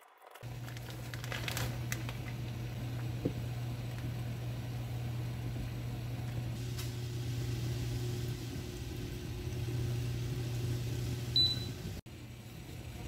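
Water boiling in a pot on an induction cooktop with a steady low hum as noodles are stirred, a few light knocks of the utensil early on. A short high beep from the cooktop's touch controls comes near the end.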